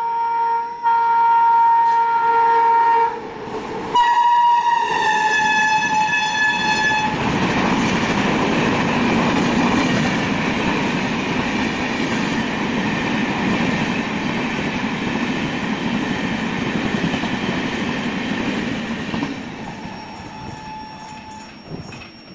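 Tejas Rajdhani Express approaching at speed, its locomotive horn sounding two long blasts and then a third whose pitch drops as the locomotive passes. The coaches then rush past in a loud, steady roar of wheels on rails that fades away near the end.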